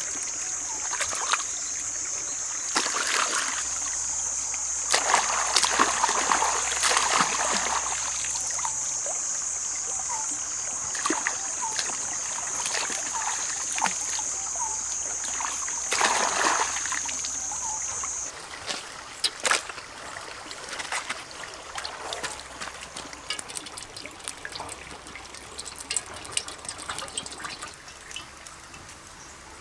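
Water splashing and sloshing in a shallow stream as frogs are rubbed and rinsed by hand in a wicker basket, over a light trickle of running water. A steady high-pitched whine runs above it and cuts off suddenly about two-thirds of the way through, after which the sound is quieter.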